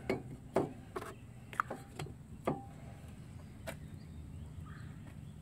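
A handful of light knocks and metal clinks, about six over the first four seconds, as tools and parts are handled and set down, with a low steady hum underneath.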